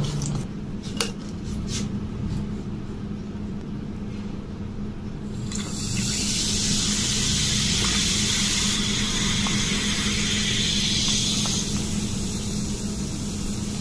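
Coca-Cola poured from a bottle over ice into a glass, a fizzing, splashing hiss that starts about five seconds in and lasts about six seconds before dying down. A few faint clicks come before it.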